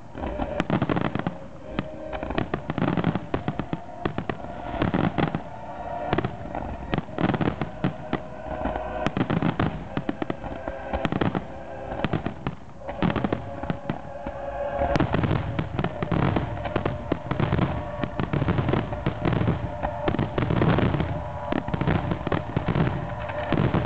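Fireworks display: a dense, continuous run of bangs and crackles with no pause.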